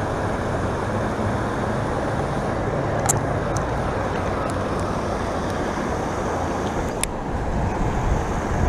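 Steady rush of water from a small rock waterfall feeding the pond, with a few sharp clicks from a baitcasting reel being handled.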